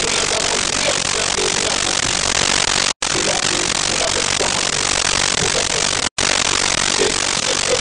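Loud steady hiss like static from a noisy recording, cutting out to silence for an instant twice, about every three seconds. Faint pitched sounds lie under the hiss.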